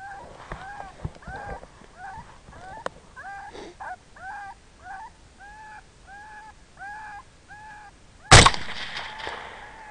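A run of short, arching calls repeating about twice a second, then one loud rifle shot about eight seconds in, with a long echoing tail.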